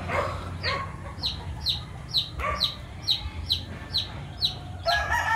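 Gamefowl chickens clucking, over a steady string of short, high, falling peeps about twice a second. A rooster starts crowing loudly near the end.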